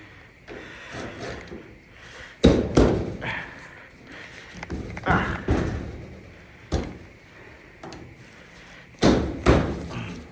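Several sharp knocks and thuds, some in quick pairs, as a putty knife is worked in to pry loose a panel of a Samsung dryer's sheet-metal cabinet.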